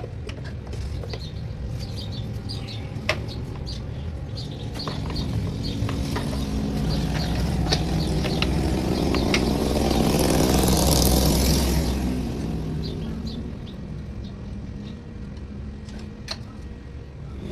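A motor vehicle's engine grows louder over several seconds, peaks about two-thirds of the way in, then fades again, as a vehicle passing by does. Short high ticks and chirps are scattered throughout.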